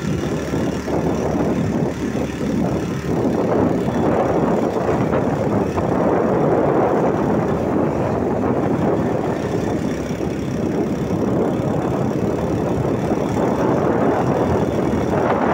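Steady rush of wind and road noise with a motorcycle engine running underneath, heard while riding along.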